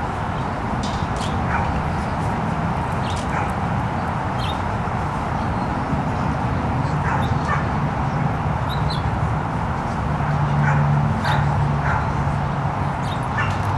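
Irish water spaniels yipping, whining and barking in short, scattered calls over a steady low background hum.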